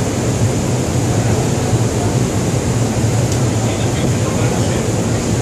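A steady low hum with a hiss above it, under an indistinct murmur of many people talking.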